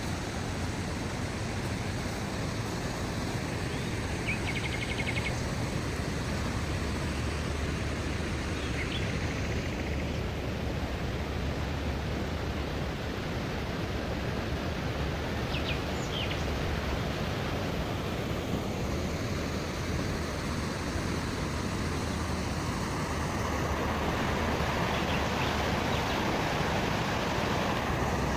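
Steady outdoor background noise with a few faint bird calls over it, one a short trill about four seconds in and a couple of quick chirps around the middle.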